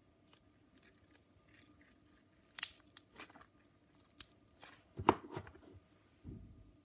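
Purple slime being stretched and squeezed by hand, giving a handful of short sticky clicks and pops, the loudest about five seconds in.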